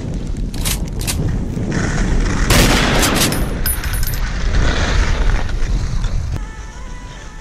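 Wind buffeting the microphone of a camera carried by a skier going downhill, with the scrape of skis on snow. Several sharp gusts hit, the loudest about two and a half to three seconds in, and it eases off near the end.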